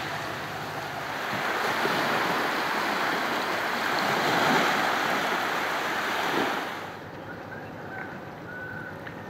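Small waves washing onto a sandy shore, an even rushing wash that swells and ebbs. About seven seconds in it drops suddenly to a much quieter background with a few faint, short high tones.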